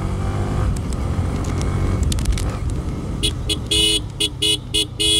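Motorcycle engine running as the bike rides along. Near the end a horn beeps about seven times in quick succession, short toots with one or two longer ones.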